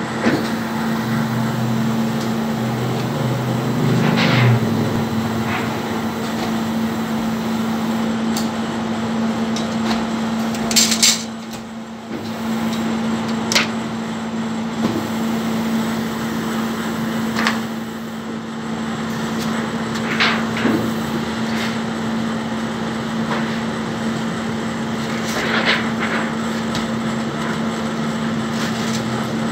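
Shinohara 52 offset printing press humming steadily, with several sharp metal clanks and knocks as the printing unit's guard cover is handled.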